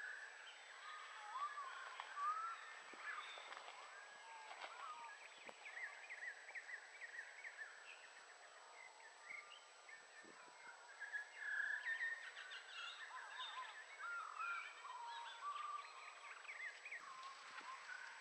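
Birdsong: a busy, varied run of short whistles, slurred up-and-down glides and a few clicks, with several notes overlapping at times.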